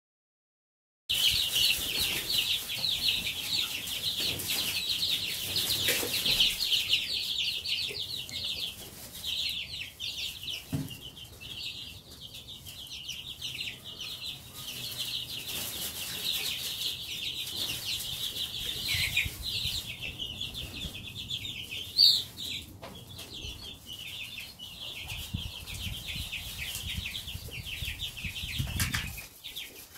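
A brood of two-week-old Marans chicks peeping, starting about a second in: many short, high-pitched peeps overlapping into a continuous chorus.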